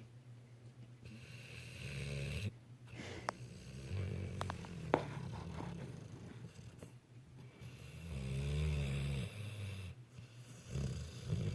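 Snoring: about four snores two to three seconds apart, the longest and loudest about two thirds of the way through, with a couple of sharp clicks between the early snores.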